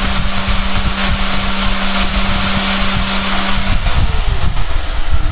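Yato YT-82185 portable band saw running steadily as its blade cuts through a thick white plastic pipe, with a dense hiss from the cut. A little under four seconds in the cut finishes and the motor's steady tone stops, its whine falling as it runs down.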